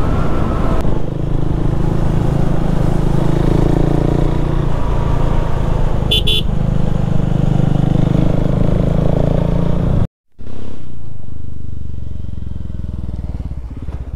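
KTM 390 Duke's single-cylinder engine running as the motorcycle is ridden, a steady engine drone. A brief high tone sounds about six seconds in. After a short dropout about ten seconds in, the engine grows gradually quieter.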